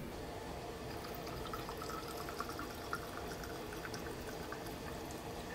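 Denatured alcohol poured in a thin stream from a metal can's spout into a plastic bottle already part-filled with liquid: a quiet, steady trickle.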